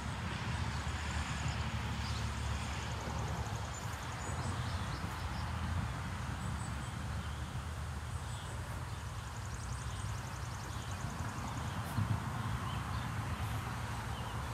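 Outdoor background noise: a steady low rumble with faint, high, rapidly repeating chirping, and a single brief knock about twelve seconds in.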